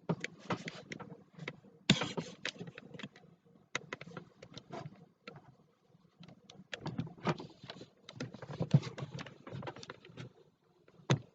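Irregular clicks, knocks and rustles close to the microphone, loudest about two seconds in and again near the end.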